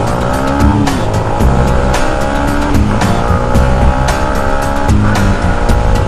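Motorcycle engine accelerating hard through the gears. Its pitch climbs and breaks off at a gear shift about every two seconds, over wind noise on the helmet-mounted microphone.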